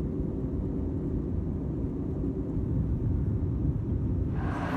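Airliner cabin noise in flight: a steady low rumble of engines and airflow with a faint constant hum, giving way to a brighter hiss just before the end.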